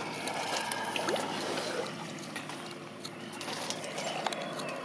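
Lake water splashing, trickling and dripping around a paddle as it dips and pulls through the water beside a stand-up paddleboard, a busy patter of small splashes.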